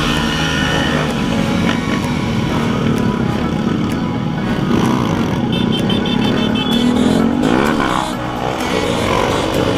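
Small motorcycle engines running in a group ride, with one engine revving up sharply and dropping back about three-quarters of the way through.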